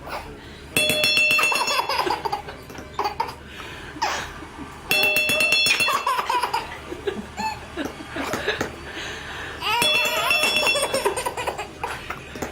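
A marker strikes a pear sculpture three times, each strike ringing with a bell-like tone. Each ring is followed by a baby's belly laughs.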